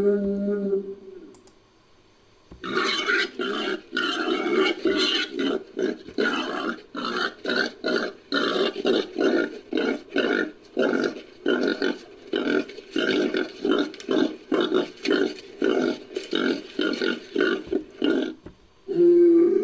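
Designed creature call for Anthracobune, made from wild boar and bull recordings. A pitched bellow fades out about a second in. After a short pause comes a long run of rough, rhythmic grunts, two to three a second, which stops near the end.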